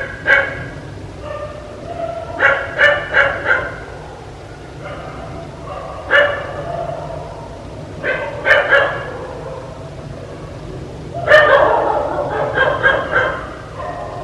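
Dog barking in short clusters of one to four barks, with pauses of a second or two between them, over a steady low hum.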